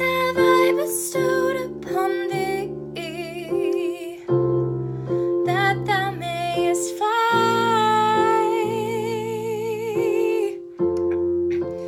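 A woman singing with vibrato over held piano-sound chords played on an electronic keyboard, with one long sung note held from about seven seconds in to near the end.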